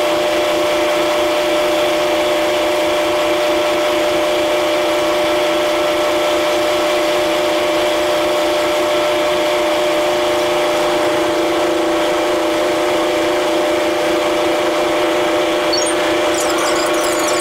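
Steady mechanical drone of a large car ferry's machinery heard from the open deck, a constant hum with two strong held tones, one of which shifts slightly about ten seconds in.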